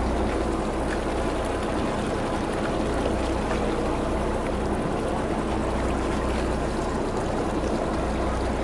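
Fishing boat's engine running steadily with a low hum, under the steady wash of sea water along the hull.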